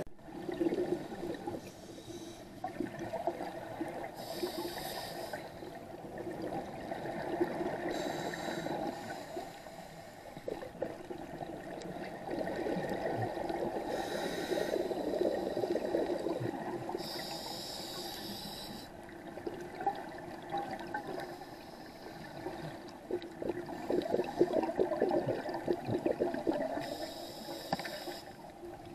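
Scuba diver breathing through a regulator underwater: a short hissing inhale, about five times, each followed by a long bubbling exhale.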